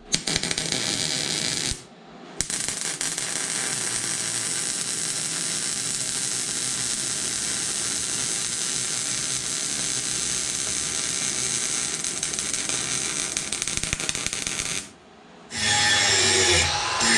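MIG welding arc crackling steadily as beads are laid on a steel mower deck bracket, filling a crack that was ground out. A short run stops after about two seconds, a long run lasts about twelve seconds, and another run starts near the end.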